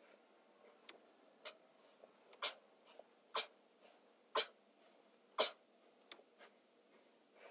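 A man breathing out hard, about once a second, with each sit-up; two sharp clicks come about a second in and near the end.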